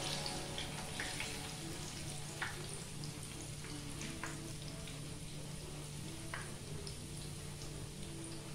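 Plantain batter balls deep-frying in hot oil: a steady sizzle with scattered sharp pops and crackles, while a slotted spatula stirs them in the pan.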